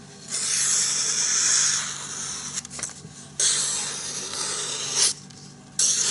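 Fallkniven F1 knife blade drawn across a surface in three long hissing strokes, each lasting one to two seconds with short gaps between.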